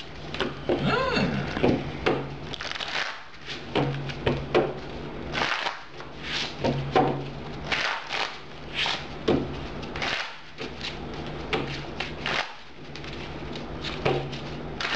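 Pokémon trading cards being shuffled and handled on a table: an irregular run of soft clicks, flicks and rustles, over a steady low hum.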